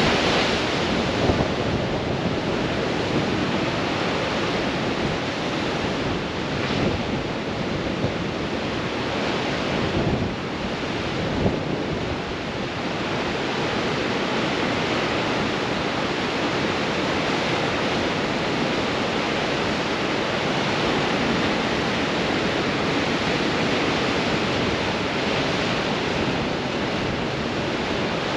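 Ocean surf breaking on rocks in a strong wind, a continuous dense wash of water and spray with wind buffeting the microphone. A few louder wave breaks stand out in the first dozen seconds.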